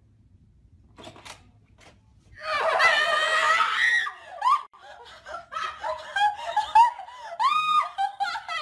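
A young woman screams in fright, starting about two seconds in and lasting about a second and a half, then breaks into repeated bursts of laughter.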